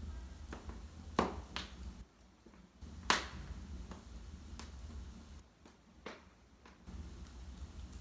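Wood fire in a fireplace crackling, with sharp, irregular pops from the burning logs, the loudest about three seconds in, over a low rumble that comes and goes.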